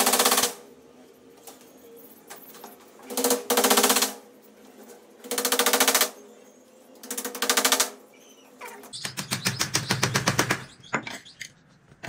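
Small hammer driving nails through a wooden trim strip into a cage frame: four short bursts of rapid blows a couple of seconds apart, then a longer run of blows about nine seconds in.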